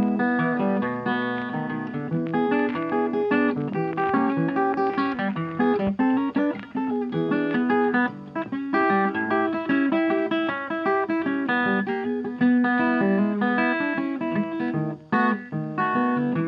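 Instrumental background music led by plucked guitar, a busy run of picked notes.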